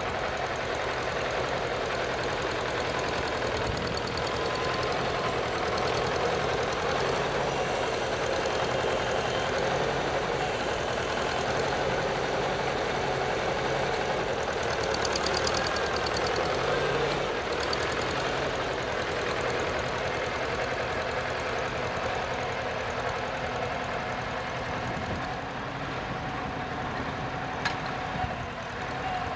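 Farmall Super C tractor engine running under load as it drags a rear blade through loose tilled dirt, louder as the tractor passes close by midway.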